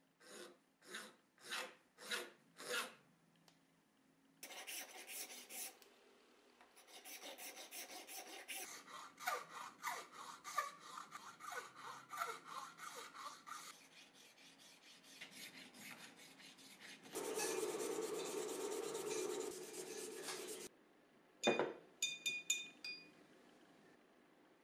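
Iwasaki hand file rasping across a small hard red part. The strokes are slow and separate at first, about two a second, then quicker and denser, with a long steady rasp later on. A few short clicks come near the end.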